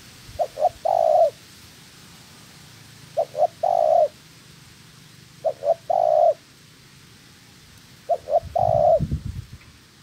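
Spotted dove cooing in four phrases about two and a half seconds apart, each two quick short notes followed by one longer coo. A low rumble comes in under the last phrase near the end.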